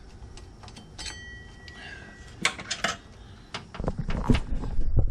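Metal tools and engine parts clinking as the water pump pulley is worked off. A light metallic tap rings briefly about a second in, a few sharper clinks follow near the middle, and a run of louder knocks and rattles comes near the end.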